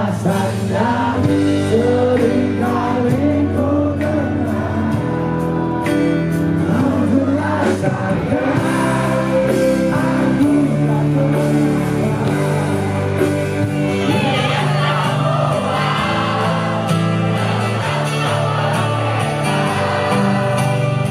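Indonesian pop band playing live, with a male lead vocal over bass, keyboards and drums, recorded from within the crowd.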